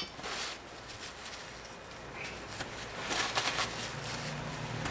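Gloved hands handling a metal outboard engine casting: a sharp click at the start, then scattered rustling and scraping, busiest around three seconds in.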